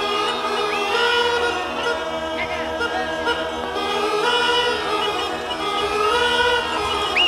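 Background music of a choir singing held, layered chords, with a higher voice sliding and wavering now and then.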